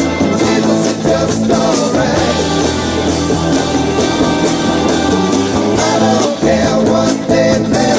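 Rock song with a singing voice over a full band, playing steadily.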